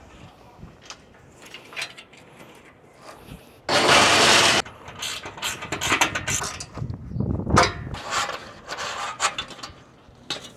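Ratchet wrench clicking as it tightens the bolt that clamps a solar panel's aluminium frame to a ground-mount post. A louder burst of it about a second long comes about four seconds in, and irregular clicking strokes follow.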